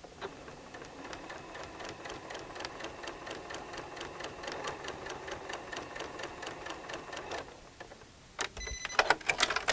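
Electric sewing machine stitching a seam, running steadily with rapid, even needle ticks for about seven seconds before it stops, followed by a few sharp clicks near the end.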